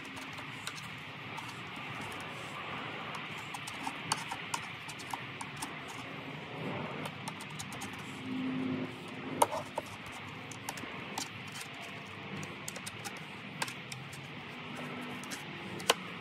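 Knife blade slicing through carpet along a platform's hinge line: irregular scratchy clicks and ticks as the blade cuts the pile, over a steady background hiss.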